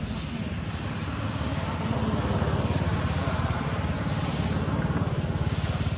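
Engine running steadily with a fast, even low pulsing, a little louder about two seconds in. A few short, high rising chirps come through in the second half.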